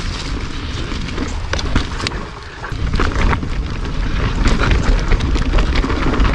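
Mountain bike rolling fast down a dirt trail: a steady low rumble of wind and ground noise on the microphone, with frequent clicks and rattles from the bike and tyres over leaves and dirt. The rumble dips briefly about two and a half seconds in.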